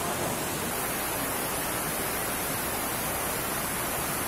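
Steady rainfall: an even hiss of rain with no change in loudness.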